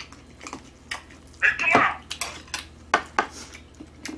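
Metal chopsticks and a spoon clicking and scraping against a griddle pan of fried rice, with many short sharp clicks and a louder scrape about one and a half seconds in.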